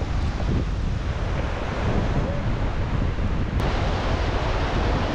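Wind buffeting the microphone over a steady rushing noise, heavy in the low rumble. A brighter hiss comes in suddenly about three and a half seconds in.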